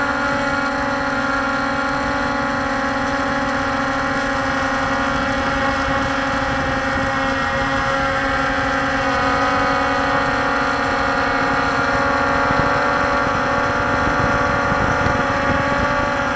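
Walkera Scout X4 quadcopter's electric motors and propellers running in flight, heard close up from the camera on board as a steady, even hum of several fixed tones over a rushing noise.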